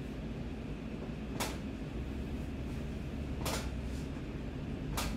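Steady low room hum, broken by three short sharp clicks or knocks: about a second and a half in, about three and a half seconds in, and near the end.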